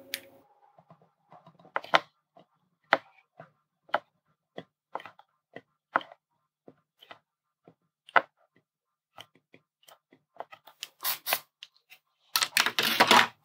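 Soldering iron tip and solder wire tapping and clicking lightly and irregularly on a circuit board's pads as they are tinned, with a louder scraping rustle near the end.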